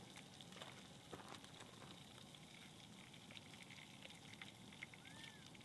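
Faint sizzling of food cooking, a low steady hiss with many small crackles. A short rising-and-falling whistle-like tone sounds once near the end.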